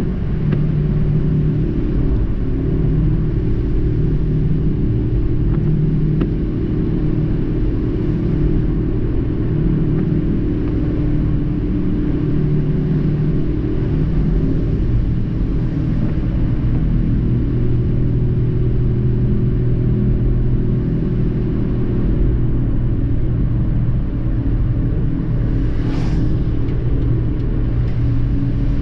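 Car driving on a wet road, heard from inside the cabin: a steady low engine and tyre rumble whose hum shifts in pitch now and then, with a hiss of tyres on wet tarmac. A brief sharp sound near the end.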